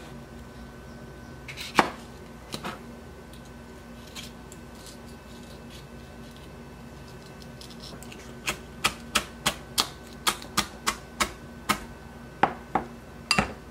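Chef's knife chopping a habanero pepper on a cutting board. There is a single sharp knock about two seconds in, then from about eight seconds in a run of quick, evenly spaced chops, about three a second.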